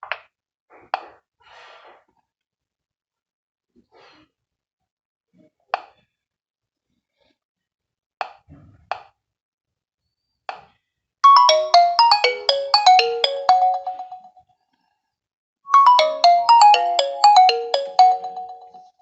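Nokia 1.3 smartphone's loudspeaker playing a ringtone: a quick melodic phrase of many short notes, heard twice, starting about eleven seconds in and again about sixteen seconds in. Before it come a handful of scattered single clicks.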